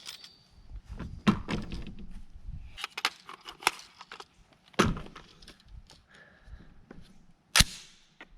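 A series of sharp knocks and clacks at irregular intervals, the loudest about a second in, near the middle and near the end, with lighter clicks between, typical of rifles and gear being handled at a shooting bench.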